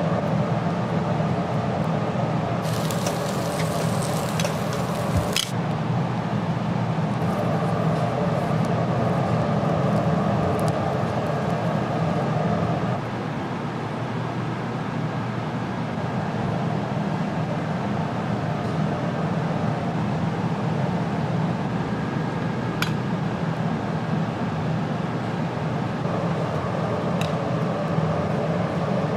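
Steady low machine hum, with a short burst of hissing about three seconds in and a few light clinks.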